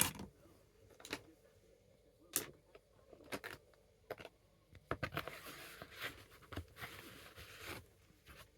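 Fridge magnets being handled and sorted in a box: scattered light clicks and knocks, with a few seconds of rustling and scraping starting about halfway through.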